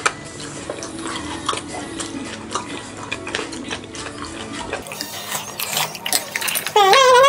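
Eating at a table: metal spoons and chopsticks clinking against stone bowls and dishes, with soup being spooned. Near the end a loud, wavering melodic voice comes in.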